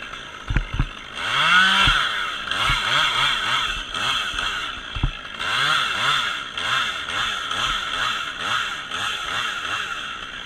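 Two-stroke chainsaw revving up about a second in, then its engine speed rising and falling repeatedly, about twice a second. Two short knocks come just before it opens up.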